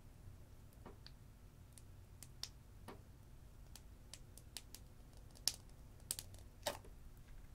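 Faint, irregular small clicks and pops of clay slime being squeezed out of a piping bag, with a few louder pops after about five seconds.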